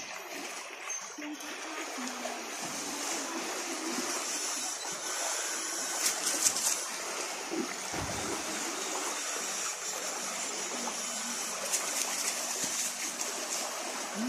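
Water splashing and churning as several people wade through a shallow, flowing stream, with a few louder splashes in the middle.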